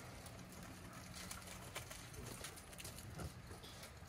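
Faint, scattered pattering and scuffing of dog paws and feet on gravel, with a faint short call or two in the second half.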